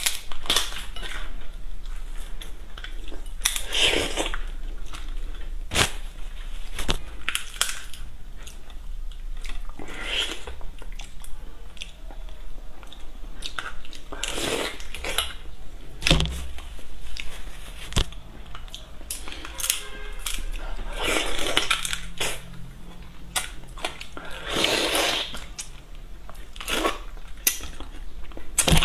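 A large tiger prawn being pulled apart by hand and eaten: the shell cracking and snapping in many sharp clicks, with several longer spells of sucking and chewing noise.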